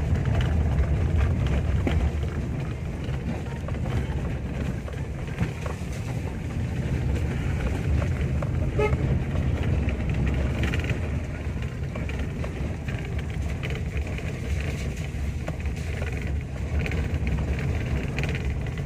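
Car cabin noise while driving slowly over a rough, wet dirt road: a steady low engine and tyre rumble with small knocks and rattles from the bumps. One short beep about nine seconds in.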